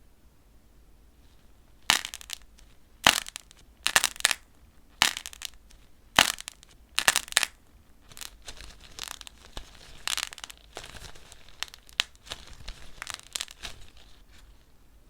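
Dried crunchy clay being cracked and crushed: about six loud, sharp crunches roughly a second apart starting some two seconds in, then a run of smaller crackles.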